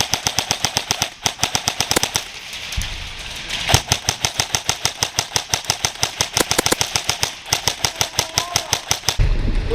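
Airsoft electric rifle firing a long string of very rapid shots, about eight a second, with a denser flurry about a third of the way in. The fire is so fast that it is taken for full auto, though the shooter says it is semi-auto.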